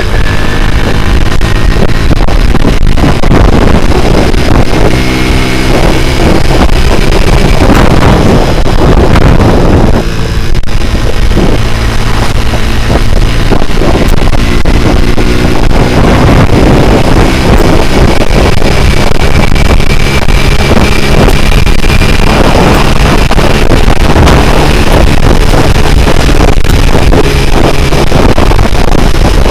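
Honda C70 motorcycle with a Honda Grand four-stroke single-cylinder engine running under way, its engine note rising and falling with the throttle, with a brief dip about ten seconds in.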